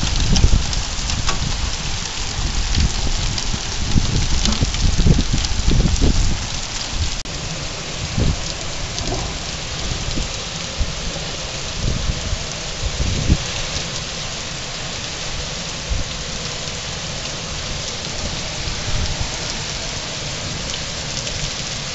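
Heavy rain and hail pouring down on pavement and parked cars, a steady dense hiss. Bursts of low rumbling are heavy for about the first seven seconds and come only now and then after that.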